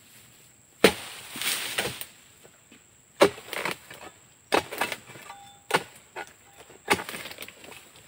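Oil palm harvesting chisel (dodos) on a long pole chopping into palm frond bases: five sharp strikes, one every second or two, each followed by a short leafy rustle.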